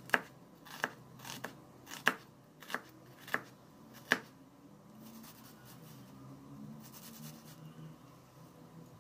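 Chef's knife slicing an onion on a plastic cutting board: about seven sharp knife-on-board strokes, roughly one every two-thirds of a second, stopping about four seconds in. After that only faint, soft sounds.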